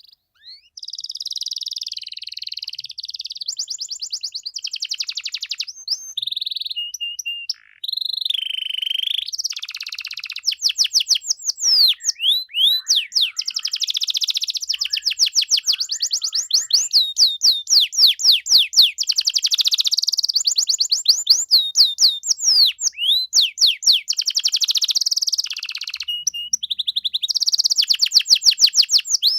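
Domestic canary singing a long, nearly unbroken song of rapid trills and fast repeated sweeping notes, with a brief pause about eight seconds in.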